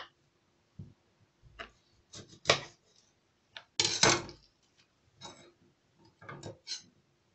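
Kitchen knife cutting lemons in half: a few irregular knocks and short cutting sounds as the blade goes through the fruit and meets the counter, the loudest about four seconds in.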